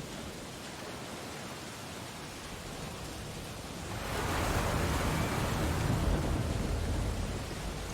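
Ocean waves: a steady wash of surf, with one wave swelling louder about halfway through and easing off near the end.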